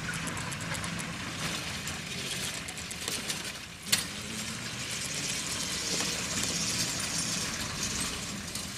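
Home-built 18-inch gauge battery-electric trolley car running on its track: the wheels click and clatter over the rails over a steady low hum, with one sharp click about four seconds in.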